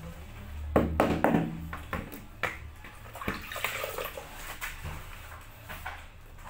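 Rubber mallet tapping a floor tile down into its mortar bed: a quick run of taps about a second in, then a couple of single knocks. After that, a soft scraping as a hand works over the tile.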